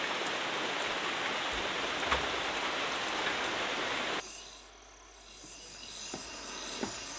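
Steady, heavy rain. About four seconds in it cuts off abruptly to a much quieter wet-forest background with a few faint knocks.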